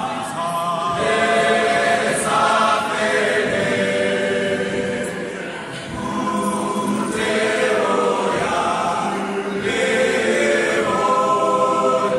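Male choir singing in several-part harmony, the voices holding long notes.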